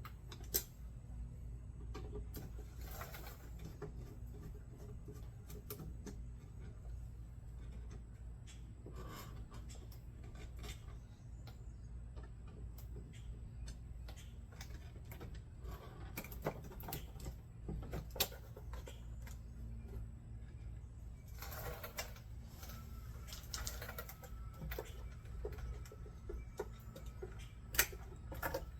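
Irregular clicks and taps of hand work on parts and tools, a few sharper knocks among them, over a low steady hum.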